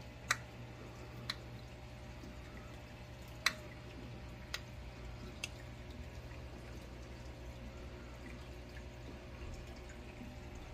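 Peacock mantis shrimp striking a fiddler crab with its clubs: five sharp clicks in the first five and a half seconds, the loudest about three and a half seconds in. They sit over the steady low hum of the aquarium's equipment.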